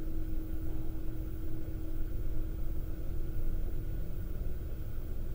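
Steady low rumble with a faint constant hum underneath: indoor room tone, with no distinct events.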